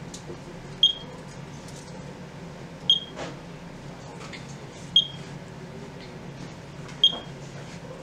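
Short high-pitched beep from a Tanksystem Hermetic UTImeter switched on with its sensor dry, repeating about every two seconds, four times, over a faint low hum.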